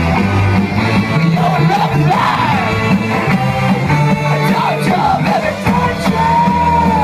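Live rock band playing loudly, with a singer's voice sliding up and down over steady bass notes and a long held note near the end.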